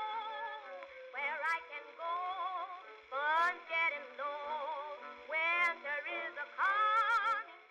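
Background music: a wavering lead melody with several upward swoops into notes, over steadier held notes.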